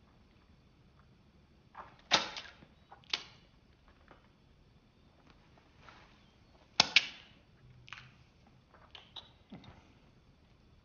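Wet sucking pops of lips letting go of fingers as hot-chip seasoning is licked off them. There are several sharp smacks a second or more apart, the loudest about two seconds in and a quick double pop about seven seconds in.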